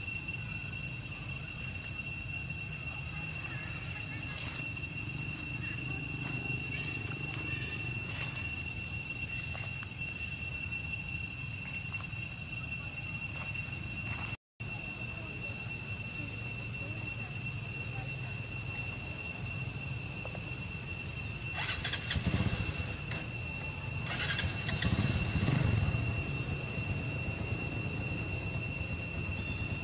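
Steady high-pitched insect drone holding two even tones, with a brief dropout about halfway through and a few louder indistinct sounds about three-quarters of the way in.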